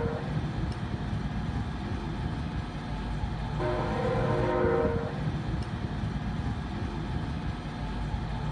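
BNSF diesel locomotive sounding its air horn in one long blast of several steady notes about three and a half seconds in, over the continuous low rumble of the train.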